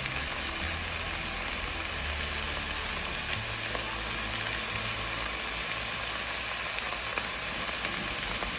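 Thin beef steak sizzling steadily in hot oil in a nonstick frying pan, with a few faint pops of spatter.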